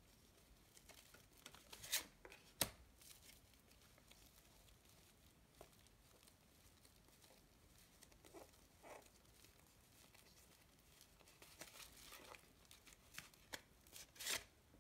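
Faint rustling and light clicks of stiff cards being handled in a fanned deck of fortune-telling cards, a few soft ticks early on and a quicker cluster near the end as a card is slid out of the fan; otherwise near silence.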